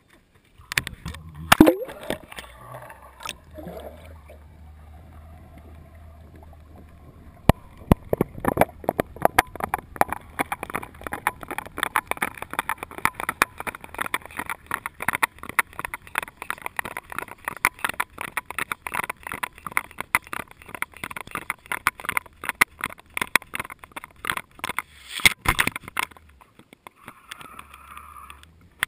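Camera going into the sea: a few sharp splashy knocks about a second and a half in, then muffled underwater sound, a low hum at first and from about eight seconds on a dense, irregular crackle of clicks and knocks as the camera hangs and sinks in the water.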